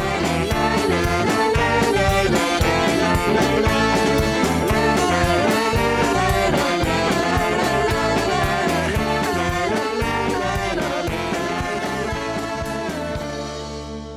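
Podcast outro music with a steady beat, fading out near the end.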